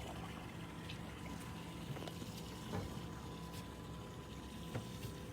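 Water gently lapping and trickling against an aluminum boat hull, with a faint steady hum and a few small clicks and knocks.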